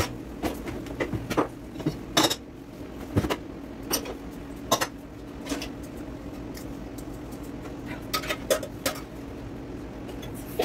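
Dishes, cups and a pot clinking and knocking as they are lifted out of a dishwasher's wire racks: scattered knocks, the sharpest about two seconds in, and a quick run of clinks around eight seconds in, over a steady low hum.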